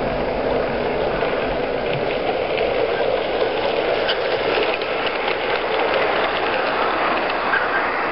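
45 mm gauge model steam tank locomotive running past along the track: a steady mechanical whirr and clatter from its geared drive and wheels on the rails, with light clicks.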